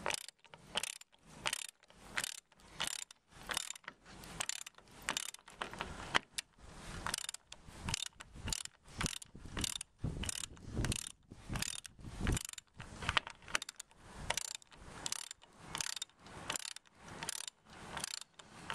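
Hand ratchet with a 21 mm spark-plug socket clicking in steady back-and-forth strokes, about two a second, as it unscrews a bolt-in roof fixing.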